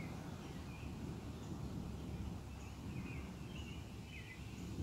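Small songbirds chirping in short, scattered calls over a steady low rumble, which swells near the end.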